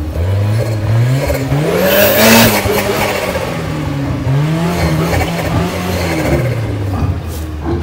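Small off-road 4x4's engine revving up and down repeatedly while crawling over rough ground, with its loudest, highest rev about two seconds in.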